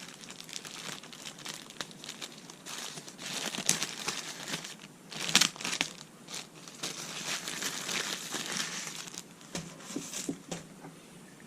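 Plastic packaging crinkling and rustling in irregular bursts as a motion sensor is unwrapped by hand.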